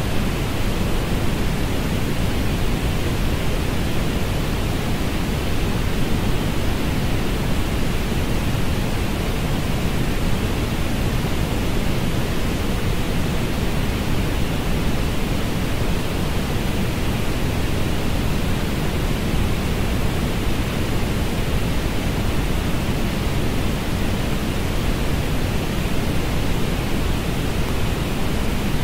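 Steady synthetic orange noise: an even, unbroken hiss, strongest in the deep lows with a second brighter band in the upper middle and little treble.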